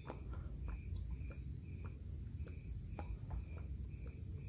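Motor oil pouring from a plastic jug into an engine's oil filler, with a few faint irregular glugs and ticks. An insect chirps steadily about twice a second over a low background rumble.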